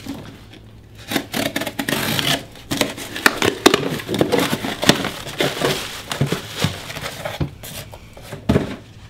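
Cardboard shipping box being opened by hand: packing tape cut and torn, and the cardboard flaps scraping and crinkling as they are pulled open, with a single thump near the end.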